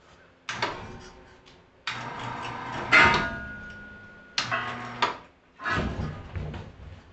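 Handling noise from a large cut-out template being picked up and moved over a workbench: four bouts of knocks and clatter. The loudest knock, about three seconds in, is followed by a brief ringing tone, like metal struck on the bench.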